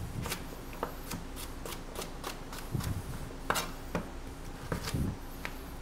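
Light, irregular clicks and knocks of a chef's knife and cut vegetable pieces on a cutting board, with a few soft thuds.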